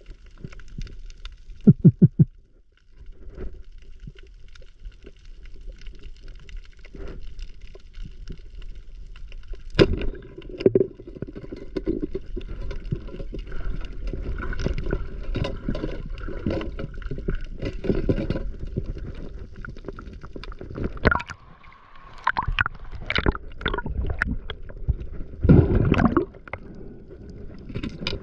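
Water sloshing and gurgling in a continuous wash, with irregular sharp knocks, including a quick run of strikes about two seconds in.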